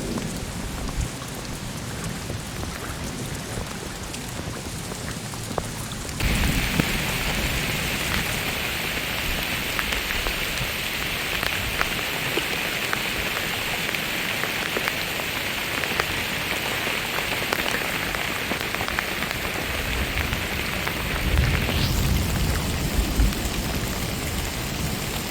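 Heavy rain falling steadily on a canvas tent, stepping up suddenly about six seconds in, with a low rumble of thunder near the end.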